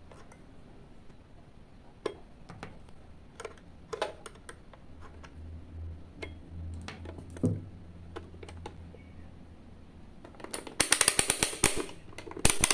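Small metal-on-glass clicks and taps as cartridge fuses are pried out of a digital multimeter's fuse clips with a screwdriver. Near the end, a fast run of ratcheting clicks as the rotary selector knob of a Victor 88C multimeter is turned through its positions.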